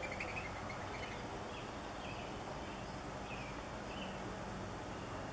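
Small bird giving a string of short, high chirps, several in quick succession at the start and then one every half second or so, over a steady background noise.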